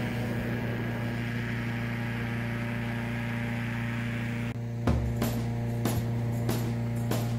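Background music in a quiet passage: a steady, held low hum-like drone, with a beat of sharp regular clicks coming back in about five seconds in.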